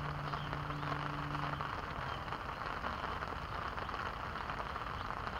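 Steady rain falling on a pond, an even hiss of drops. A low steady hum sits under it and stops about one and a half seconds in.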